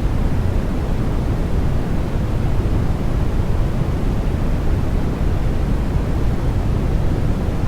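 Continuous electronic white noise for baby sleep: a steady, even rush, heavier in the low end than the highs, with no changes.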